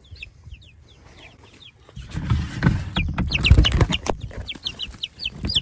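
Baby chicks peeping, a steady string of short falling cheeps. From about two seconds in there is loud rustling and bumping close to the microphone for a couple of seconds, and the peeping carries on through it.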